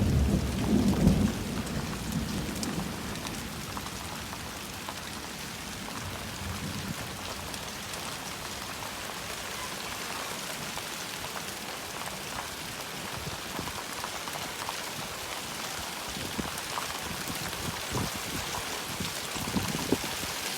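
Steady heavy rain, with the low rumble of thunder dying away in the first second or two. Scattered sharper taps of drops striking surfaces come through the hiss, more of them near the end.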